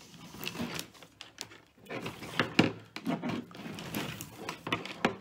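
Wires of a Ford 5.0 EFI wiring harness rustling and scraping against each other as cut wires are pulled out through the bundle, with irregular clicks and taps.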